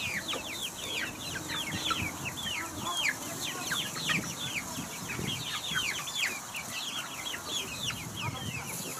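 A flock of eight-week-old pullets peeping: many short, high, falling calls, several a second, overlapping without a break.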